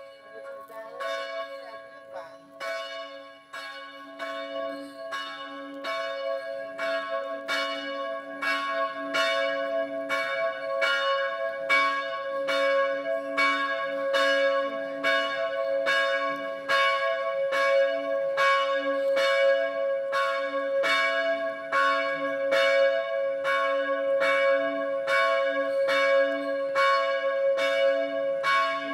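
Church bell ringing in quick, even strokes, about one and a half a second, its tone humming on between strokes. It grows louder over the first few seconds.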